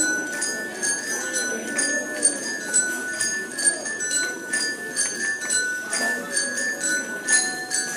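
A group of xylophones played with mallets: a dense, steady run of struck, ringing notes, several a second.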